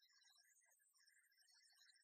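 Near silence, with faint, scattered short high-pitched blips.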